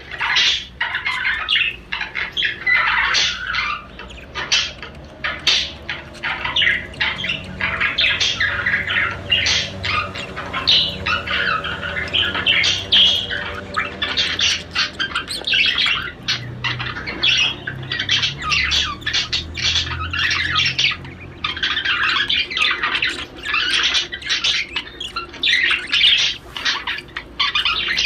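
Male budgerigar's rapid courtship warble: an unbroken run of chirps, squawks and chatter.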